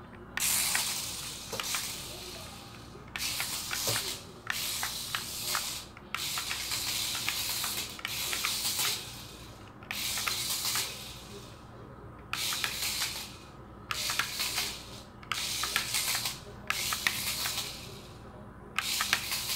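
Adventure Force Stunt Runner toy RC stunt car's small electric motors and wheels whirring on a tile floor in about ten bursts of a second or so each, as the throttle is pushed and let go, with sharp clicks and knocks as the car tumbles and flips.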